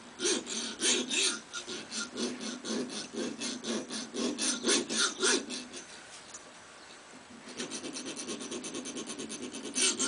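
Hacksaw blade sawing back and forth on the hardened steel shackle of a Kryptonite 11 STD U-lock, the blade barely biting into the super-hard steel. About two scraping strokes a second at first, a short pause about six seconds in, then a run of short, quick strokes.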